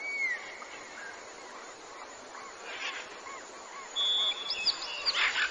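Small birds calling and singing over a steady background hiss: a whistled downward note at the start, a string of short chirps, a held high whistle about four seconds in, then quick rising notes near the end. Two brief rushes of noise come about three seconds in and near the end.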